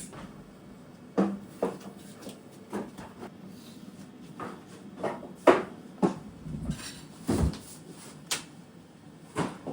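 Irregular knocks and clatter of kitchen work: dishes, pots and utensils being handled and set down, about a dozen sharp clacks, the loudest about halfway through.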